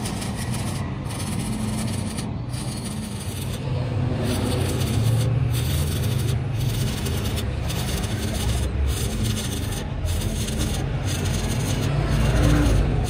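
Stick welding arc crackling and sizzling as an electrode lays weld onto the broken teeth of a steel helical pinion shaft to build them back up. The crackle drops out briefly several times, over a steady low hum.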